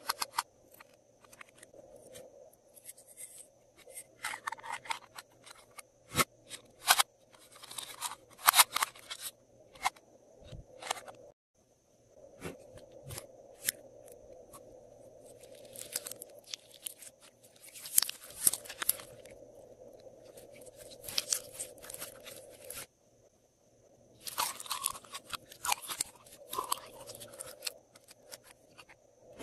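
Hands handling small plastic boxes and a plastic tub of slime: irregular sharp clicks, taps and crackles of plastic and sticky slime. Two brief silent gaps break it up.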